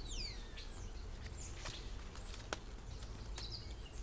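Small bird calling: a quick whistled note falling steeply in pitch at the start, then a few short high chirps. A couple of sharp clicks sound in between.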